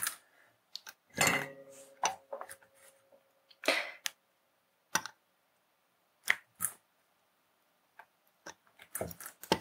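Light clicks and knocks of hands handling the breadboard assembly, a soldering iron and solder wire, with one clink about a second in that rings on for over a second.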